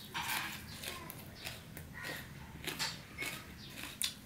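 Close-up mouth sounds of a man eating soft polau rice with his fingers: wet chewing, lip smacks and clicks, two or three a second at irregular spacing.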